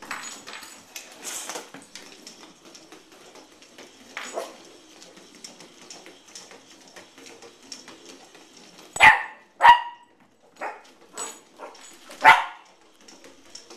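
Corgi puppy barking: two sharp barks in quick succession about nine seconds in and another a few seconds later, with a few softer yips in between. Faint clicking in the quiet stretches.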